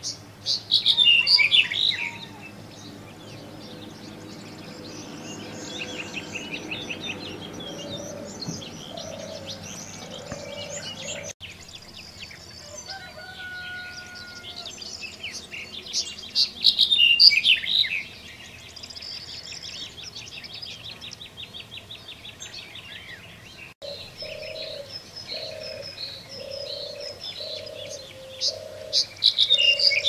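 Black-headed bunting singing: a loud song phrase about two seconds long, heard three times: at the start, past the middle and at the end. Softer bird chirps and a fast trill fill the gaps, and low repeated cooing comes in near the end.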